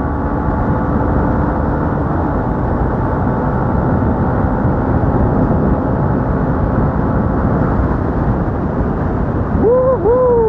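Steady wind rush and motorcycle road noise while riding at speed, with the faint steady drone of the Yamaha Sniper 150's engine underneath.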